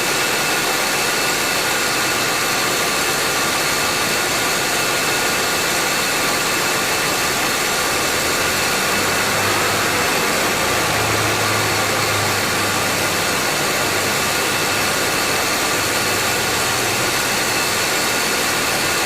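2014 Subaru Forester running with its A/C compressor engaged: a steady whirring with several thin whining tones and abnormal compressor noise. The compressor runs continuously without cycling off, which the mechanic takes as a sign of poor cooling and a worn compressor that had earlier seized.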